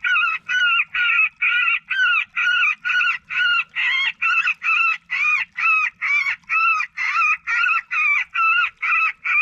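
Johnny Stewart Executioner electronic predator caller playing a raccoon call at high volume: rapid, evenly spaced squalls, about three a second. It is loud enough to hurt the ears up close.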